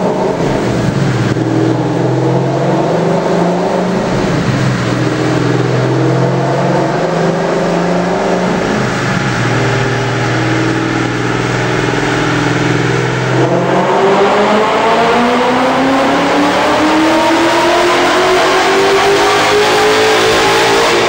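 2011 Mustang GT's 5.0 Coyote 32-valve V8, running through a Stainless Works exhaust under load on a dyno, heard from inside the cabin. The engine note holds at a fairly steady pitch at first, then rises steadily in pitch as the revs climb through the last third of the pull.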